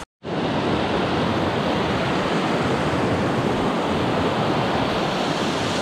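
Small mountain stream running high and fast after recent rain, whitewater rushing over rocks in a steady, unbroken rush. It starts after a split-second of silence.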